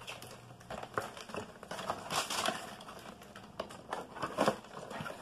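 Plastic packaging crinkling and rustling in the hands, with scattered light clicks, as small bags of fan screws are handled. The loudest rustle comes about two seconds in.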